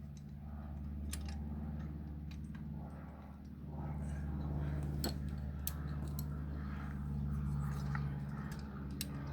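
Small metal clicks and scrapes of a hand tool working a bolt on a motorcycle lock mounting bracket, with a few sharper clicks about five seconds in and near the end, over a steady low hum.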